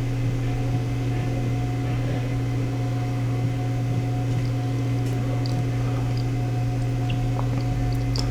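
Steady low hum with a few faint small clicks over it.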